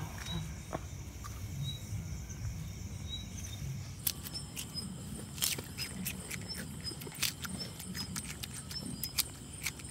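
Raw cucumber being bitten and chewed: crisp crunching clicks, coming thick and fast from about four seconds in. Crickets chirp faintly in short, regularly repeating high notes.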